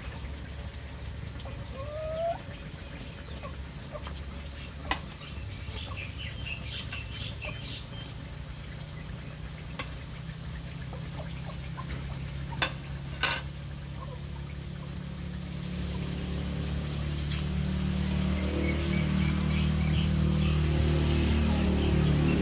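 Chickens clucking over a steady low hum, with a short rising call about two seconds in and a few sharp clicks. An engine grows steadily louder through the last several seconds.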